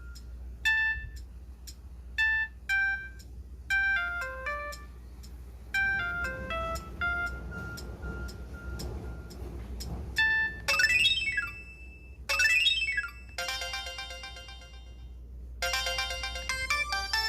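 Samsung SPH-M300 mobile phone ringtones playing one after another: short electronic beeping melodies, switching to a new tune several times. About ten seconds in, one tone has quick rising and falling sweeps, and a busier tune with many notes comes in near the end.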